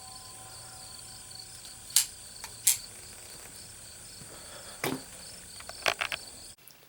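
Crickets chirping steadily, with a few sharp clicks and knocks about two, three, five and six seconds in. The sound cuts off suddenly near the end.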